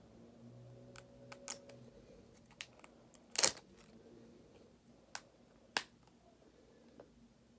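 Small plastic tube of hair balm handled in the hands: scattered light clicks and taps from the cap and fingers, with one louder sharp snap about three and a half seconds in as the tube is opened or squeezed.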